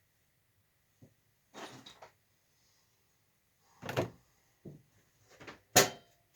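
A run of separate clunks and knocks from objects being handled and set down, the loudest near the end.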